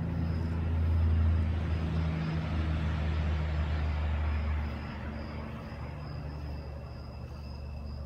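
A motor vehicle going by: engine hum and road noise swell over the first couple of seconds and fade about five seconds in, leaving a lower hum. Insects trill steadily behind it.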